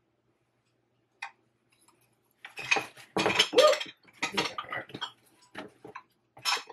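Ceramic teacups clinking and knocking together as they are handled and packed into a cardboard box: one click about a second in, then a busy run of clinks from about two and a half seconds.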